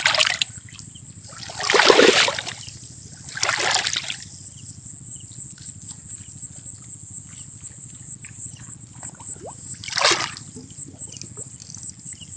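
Wet monofilament gill net being hauled hand over hand out of the water, with splashes and water pouring off it, loudest about two seconds in and again near ten seconds. Crickets chirp steadily in the background.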